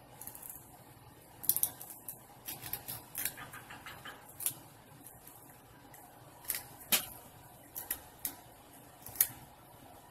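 Cooked shrimp being peeled by hand: scattered short crackles and snaps of the shells breaking, some in quick little clusters, over a low room hiss.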